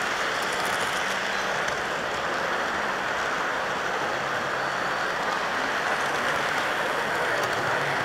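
HO scale model train running along the layout track: a steady rolling hiss and rattle of small wheels on rail, with a faint low hum underneath.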